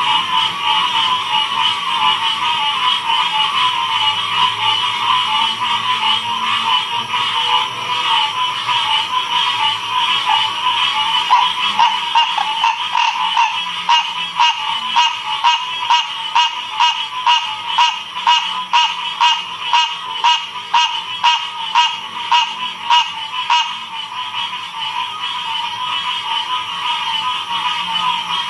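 Chorus of frogs calling continuously in a dense, steady mass. For about ten seconds in the middle, a louder pulsing of about two calls a second stands out over the chorus.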